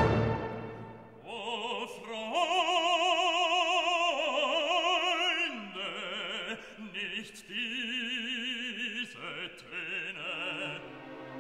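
Background music: an operatic voice singing long held notes with wide vibrato, changing pitch every second or two.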